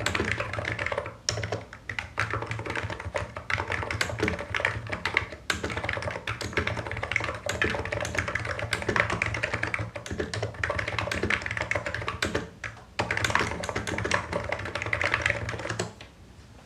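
Fast, continuous typing on a Hansung Office Master full-size electrostatic capacitive (Topre-style) keyboard with low Cherry-profile keycaps, a dense run of key presses. It breaks briefly twice and stops just before the end.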